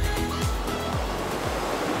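Electronic intro music with a steady kick-drum beat, fading out over the first second and a half into the rushing sound of sea water.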